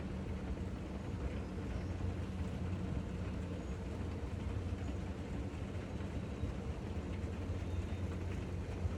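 Steady low rumble and hum of a moving vehicle, heard from inside it.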